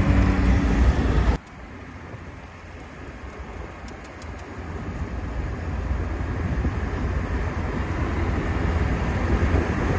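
Car driving: steady engine and road noise that drops off abruptly a little over a second in to a quieter low road rumble, which slowly builds again.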